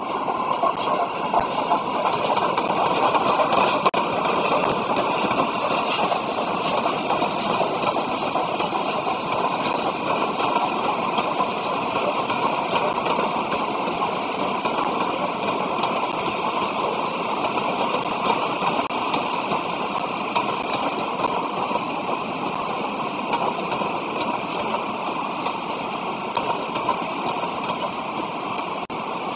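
Locomotive-hauled passenger train running slowly through a station: a steady rumble and rush of wheels and coaches, a little louder in the first few seconds as the locomotive passes.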